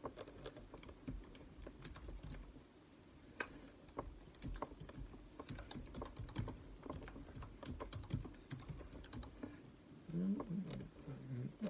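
Typing on a keyboard: light, irregular key clicks and taps.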